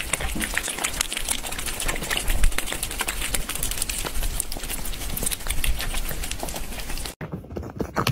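Two cats licking and chewing at hanging treats, a rapid, irregular run of wet clicks and smacks that cuts off abruptly about seven seconds in.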